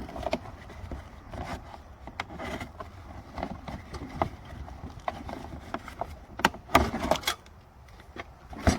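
Packaging and parts being handled while unpacking a sawmill: irregular clicks, knocks and rustles, with a cluster of louder knocks about seven seconds in.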